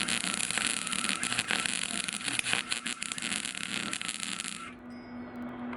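MIG welder arc crackling steadily as a galvanized nut is welded on, then stopping abruptly about four and a half seconds in, leaving a steady low hum.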